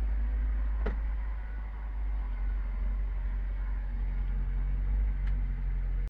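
Zetor 7011 tractor's four-cylinder diesel engine running steadily, heard from inside the cab. Two light clicks sound, one about a second in and one near the end.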